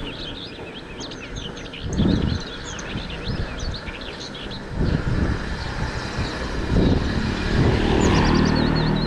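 Small birds chirping rapidly and continuously over a low rumble of tyres rolling on a road, which swells several times: about two, five and seven seconds in, and again near the end.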